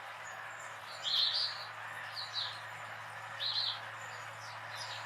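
Bird chirping: three short, high chirps, the first about a second in and the loudest, over steady background noise.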